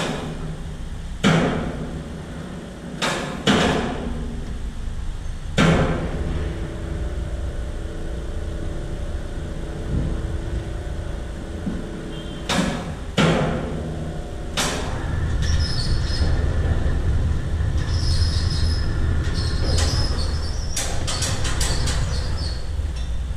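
Heavy steel parts clanking in a metal fabrication shop: about eight sharp metal impacts, some leaving a ringing tone for a few seconds. A steady low machine hum sets in about halfway through.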